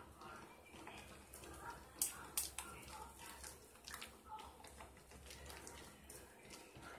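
Hands squeezing and rubbing thick soap lather: soft wet squishing with a few sharp wet clicks about two seconds in, over faint background voices.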